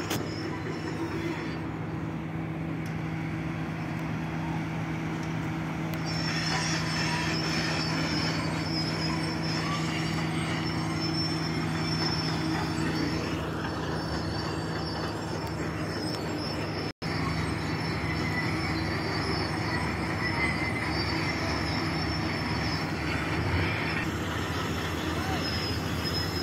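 Steady mechanical drone with a low hum, a thin high whine and a rushing noise underneath.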